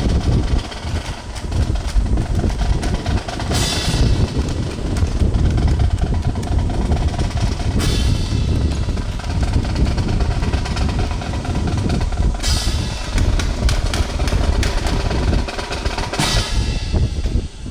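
Drum cadence on snare and bass drums, played fast and steadily, with a bright crash about every four seconds.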